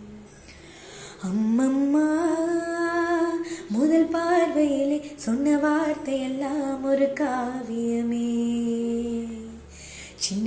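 A woman singing a slow melody without words being picked up as speech, each phrase opening with an upward slide, with a long held note near the end.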